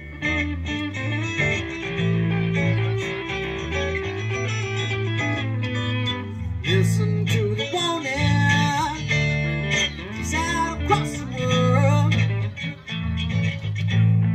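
Live band music: an electric guitar plays a wavering lead line over a steady bass line, amplified through PA speakers.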